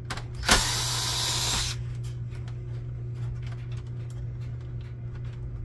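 Cordless drill/driver spinning a Phillips bit in one burst of a little over a second, backing out a control-panel screw. Faint small clicks of plastic handling follow over a steady low hum.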